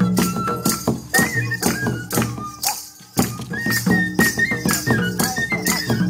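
Live folk music: a bamboo flute playing a melody over a barrel drum's steady beat. The music breaks off briefly about halfway and starts again.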